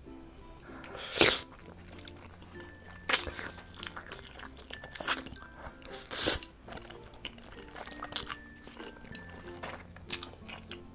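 A person slurping up wide, sauce-coated Chinese glass noodles, with four loud slurps and wet chewing between them, over soft background music.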